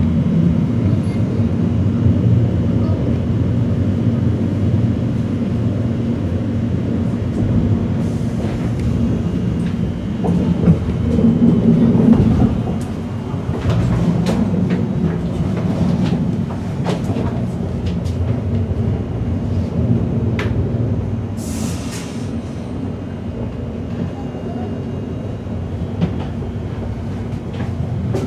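Electric suburban train heard from inside the carriage: a steady low rumble of running gear, with the wheels clattering over the rails. A brief high hiss comes about three quarters of the way through.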